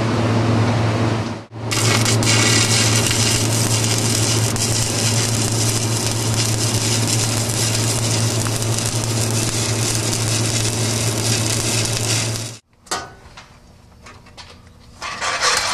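Electric arc welding: a steady crackling sizzle over a low hum, which breaks off briefly about a second and a half in, then runs on until it cuts off abruptly about twelve and a half seconds in.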